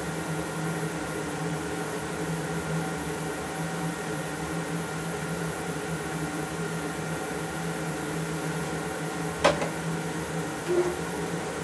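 Steady hum and rush of a workshop dust collector running while the drum sander stands stopped. About nine and a half seconds in, a sharp clack as the sander's hinged dust hood is shut.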